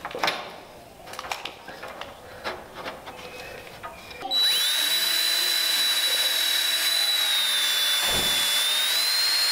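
A few scattered knocks and clicks, then about four seconds in a DeWalt cordless drill starts and runs steadily with a high whine, drilling pilot holes through steel electrical conduit. Near the end the whine dips slightly in pitch and comes back up.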